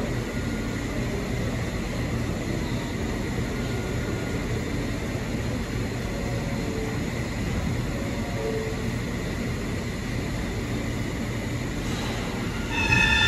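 New York City subway train running on the express track of an underground station: a steady rumble and rail noise. Near the end it gets louder and a chord of several steady high tones sets in.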